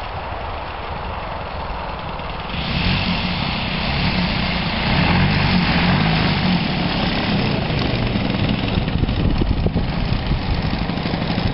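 Engine of a small ski-equipped propeller plane running as it taxis across the snow toward the camera, growing louder about two and a half seconds in and staying steady as it passes close by.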